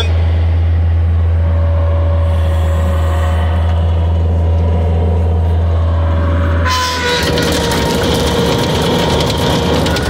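Bobcat T250 compact track loader's diesel engine running with a steady low hum. About seven seconds in, the machine starts tracking forward: track clatter and a steady whine come in. This is the noise it makes when tracking forward, on a loader that is low on power and does not track straight.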